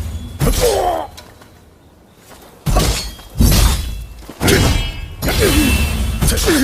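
Naginata combat sound effects: a series of about six sudden crashing hits, each fading quickly, several with a short falling tone in them.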